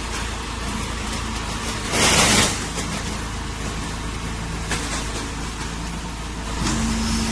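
Hydraulic silage baling press running with a steady motor and pump hum, a short loud burst of hissing noise about two seconds in, and a new steady hum starting near the end.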